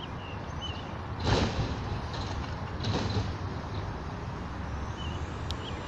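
Distant garbage truck working the street: a steady low engine rumble, with two louder mechanical bursts about a second and three seconds in.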